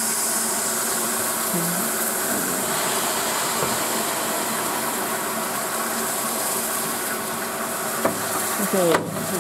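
Peppercorn A1 class 4-6-2 steam locomotive 60163 Tornado standing with a steady hiss of escaping steam.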